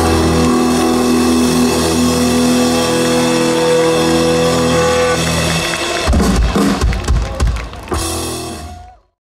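Live rock band ending a song: electric guitars ring on a held chord, then about six seconds in the drum kit plays a closing run of heavy hits, finishing with a last hit about eight seconds in, and the sound dies away about a second later.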